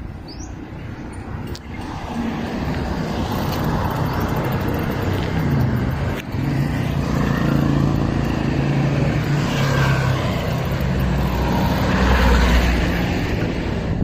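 Motor vehicle engine running close by in road traffic: a steady low hum over road noise that swells about two seconds in and is loudest near the end.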